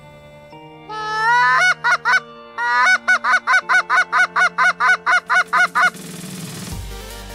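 Canada goose honking: one rising call about a second in, then a quick, even run of about a dozen short, loud honks at roughly four a second that stops about six seconds in.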